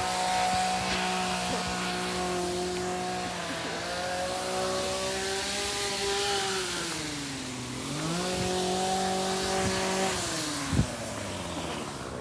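A motor running with a steady pitched hum. Its pitch drifts and dips about seven seconds in, comes back up, and then falls away near the end.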